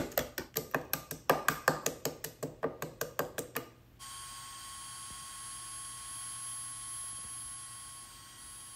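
Small metal-headed hammer tapping quickly, about five blows a second, knocking off the thin wood fins left by a series of table-saw cross cuts. The tapping stops abruptly a little under four seconds in, giving way to a faint steady hum.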